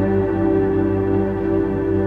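Slow orchestral music holding a steady, sustained chord.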